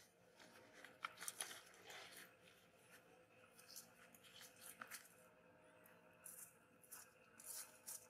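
Near silence, broken by faint, scattered short rustles and crunches at irregular intervals.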